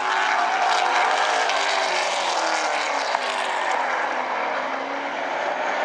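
Street stock race cars running hard in a pack on an oval track, several engine notes overlapping and shifting in pitch as the cars pass.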